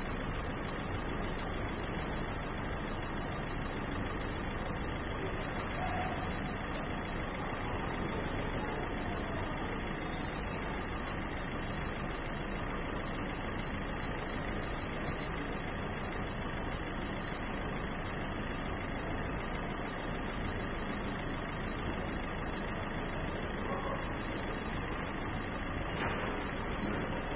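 Maruti Suzuki Ritz VDi's DDiS diesel engine idling steadily.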